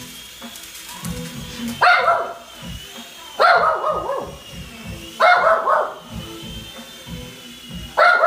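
Shih Tzu barking: four loud barks, the first three about a second and a half apart and the last after a longer pause.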